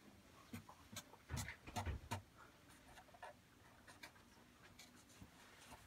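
Marker drawing on a wooden counter panel: a cluster of short scratchy strokes and taps from about half a second to two seconds in, then a few fainter ones.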